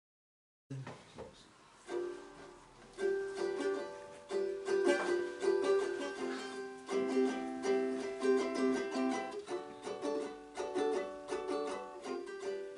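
Instrumental intro to a folk song on a plucked string instrument: a few sparse notes at first, then steady rhythmic strumming from about three seconds in.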